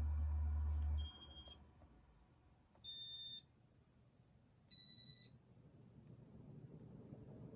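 Three short electronic beeps from a Casablanca ceiling fan's IntelliTouch control, about two seconds apart and each at a slightly different pitch. A steady low hum cuts off at the first beep.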